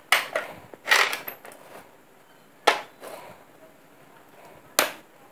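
A plastic pencil box being handled and turned over, giving four sharp clicks and knocks spread across a few seconds.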